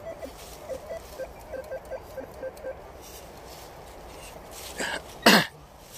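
Handheld metal-detecting pinpointer giving a quick run of short beeps, about four to five a second, as it is held over a buried target, stopping about three seconds in. A loud brief noise follows about five seconds in.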